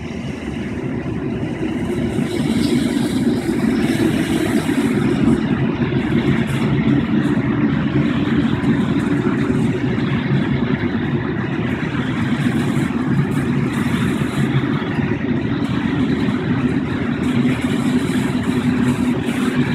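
Freight train passing at close range: a locomotive grows louder over the first couple of seconds, then a string of open freight wagons rolls by with a steady rumble of wheels on the rails and faint ticking.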